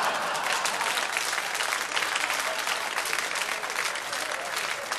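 A large studio audience applauding, many hands clapping at a steady level.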